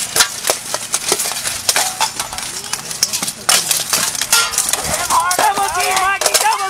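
Longswords clashing against steel armour, helmets and each other in a melee: a rapid, irregular series of metallic clanks and knocks. Shouting voices join in near the end.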